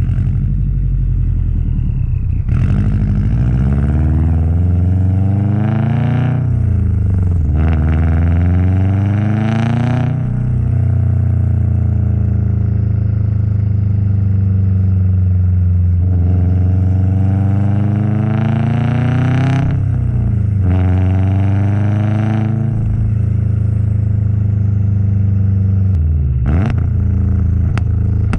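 Subaru WRX STi's turbocharged flat-four engine and exhaust under hard acceleration: the engine note rises and drops sharply several times as it shifts up through the gears in two separate pulls, with steadier cruising in between.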